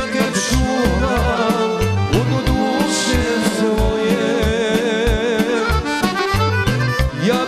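Instrumental break in a Serbian folk song: button accordion playing the melody over a steady bass beat, with violin alongside.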